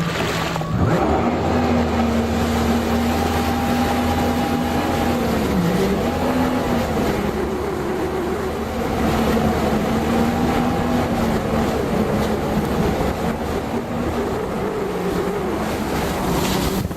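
Yamaha VX Sport jet ski engine running at steady throttle with wind and water rushing. The engine pitch dips briefly about six seconds in and then picks back up.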